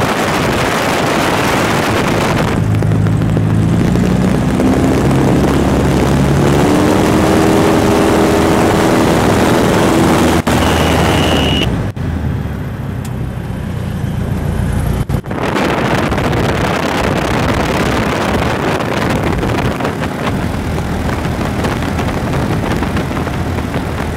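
Light high-wing airplane in flight, its engine and propeller running under heavy wind rush through the open door and window. A few seconds in, the engine note climbs in pitch and then holds; about halfway through, the wind hiss drops for a few seconds during a steep bank.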